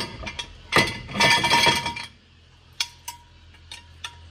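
Steel axle stand being handled and set up: a rattling metal scrape in the first two seconds, then a few light separate clinks with a short ring.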